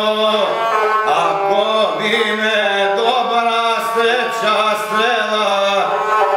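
A man singing an epic song in a chanting voice to his own gusle, the single-string bowed folk fiddle held upright on the knee, the bowed string sounding along with the voice without a break.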